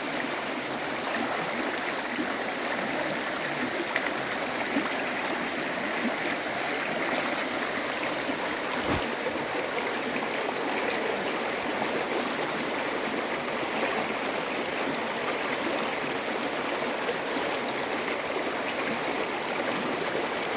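Shallow mountain stream rushing and gurgling over stones, a steady, even rush of water.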